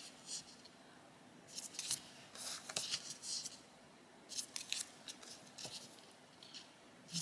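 Thin clear plastic sticker sheets crinkling and rustling as they are lifted and slid off a stack by hand, in several short spells a second or so apart.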